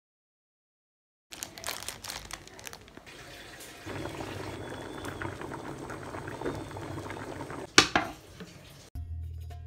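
Dried apricots boiling in a pot of liquid, a steady bubbling and crackling that starts about a second in. A single sharp knock comes near the end, and music begins just before the end.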